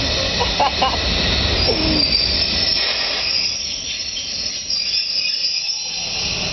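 Train noise from a PKP EN57 electric multiple unit at the platform: a steady hiss with a thin high-pitched whine, the low rumble dropping away about halfway through.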